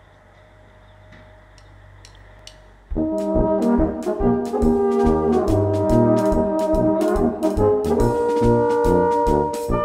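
Faint room tone for about three seconds, then brass band music starts suddenly: Bohemian-style Blasmusik with trombones and other brass over an even beat.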